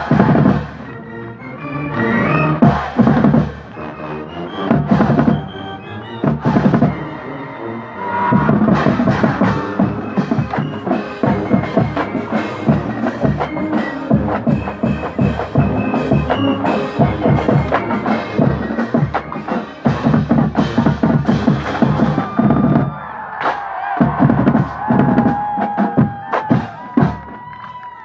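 College marching band playing, with brass horns over a drumline of bass drums. The music comes in short broken bursts at first, then plays on steadily with a strong beat.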